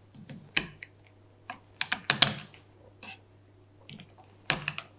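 Whole hazelnuts being crushed under a kitchen knife on a wooden chopping board: a scattering of irregular sharp cracks and knocks as the shells break and the blade meets the board.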